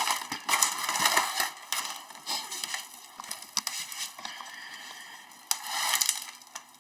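Packaging crinkling and rustling as it is handled and pulled away, with irregular crackles and small clicks; it comes in louder spells at the start and again near the end.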